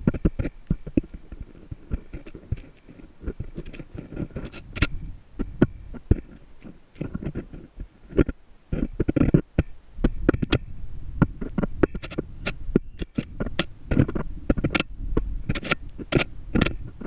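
Home-made GoPro camera rig knocking and scraping against the rock wall of a deep borehole as it is lowered, irregular sharp taps and clicks over a low rumble.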